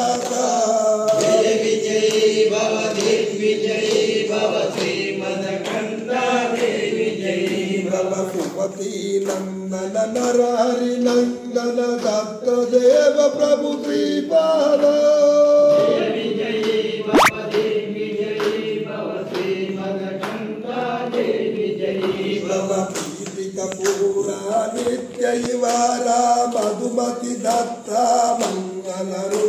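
A group of men singing a devotional chant together, keeping time with hand claps.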